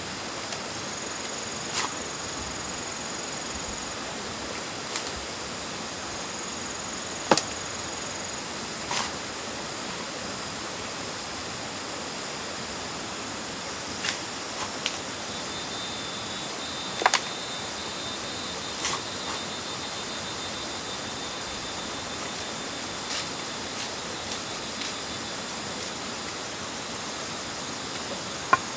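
Short sharp clicks or snaps every few seconds, about ten in all, over a steady high hiss with faint high-pitched whines that come and go.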